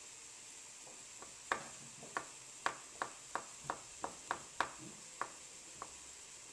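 Chef's knife chopping on a bamboo cutting board: a run of about a dozen sharp knocks of the blade on the wood, two to three a second, starting about a second and a half in and stopping shortly before the end.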